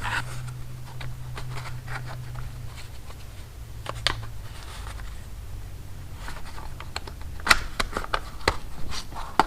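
Light clicks and taps of a chainsaw being handled and its parts turned over by hand, sharper near the end, over a steady low hum that fades about halfway.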